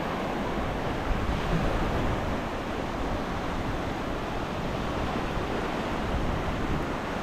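Sea surf washing onto the beach, with wind on the microphone: a steady, even wash of noise.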